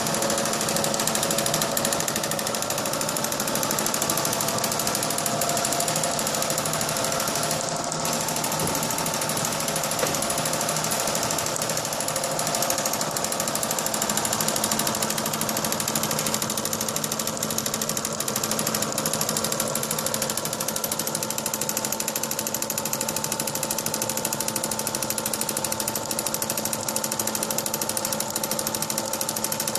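Non-hole spangle film motif machine running at speed, punching sequins out of hot-melt film. It makes a rapid, even mechanical chatter over a steady hum, with no pauses.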